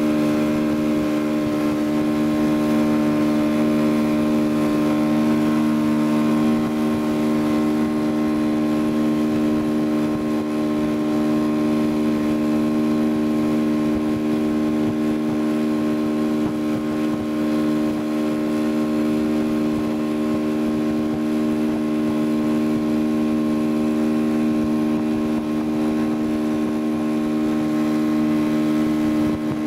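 Motorboat engine running at a steady speed while towing a tube, giving a constant low drone over a steady hiss of water and wind.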